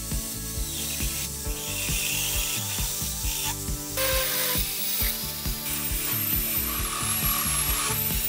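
Step drill bit in a power drill cutting through a steel disc, chattering with rapid, uneven clicks as the bit's stepped edges bite and shed chips.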